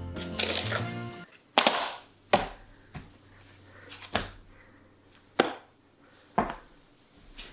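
Background music that stops about a second in, followed by a series of sharp, short knocks spaced irregularly about a second apart.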